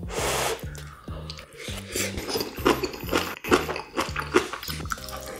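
A person chewing and smacking a mouthful of jajang sauce mixed with rice, with wet mouth sounds coming at irregular moments. Underneath runs background music with a steady bass line.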